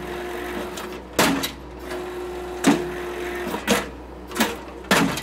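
Blue Diamond post driver on a Case skid steer hammering a wooden post, about five sharp strikes at uneven intervals, each with a short metallic ring, over a steady hum. Heard from inside the skid steer's cab.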